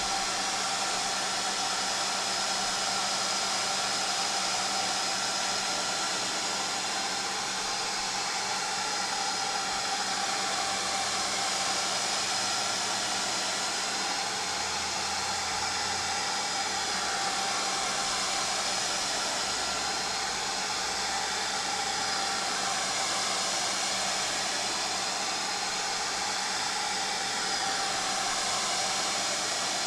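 Hand-held hot-air blower running steadily, a continuous rush of air over a motor hum, heating a tablet's glass digitizer to soften the adhesive beneath it.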